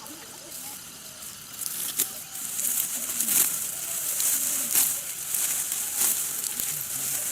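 Dry plant stalks rustling and crunching in crisp, regular strokes about every second and a half, louder from about two seconds in. Chickens cluck faintly underneath.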